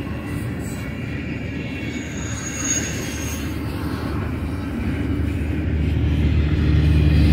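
Double-stack container cars of a freight train rolling past: a steady rumble of wheels on the rails, with a brief thin high wheel squeal about two and a half seconds in.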